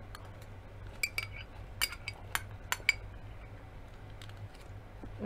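A metal spoon clinking against a small glass bowl while scooping oatmeal: a quick run of about six sharp clinks between one and three seconds in.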